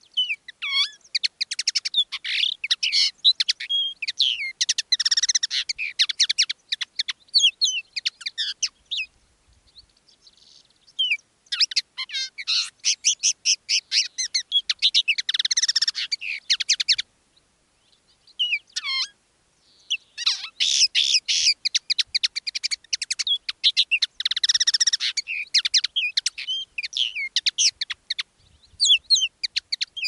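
Common linnet singing: long phrases of rapid twittering and warbled notes, broken by short pauses about nine and seventeen seconds in.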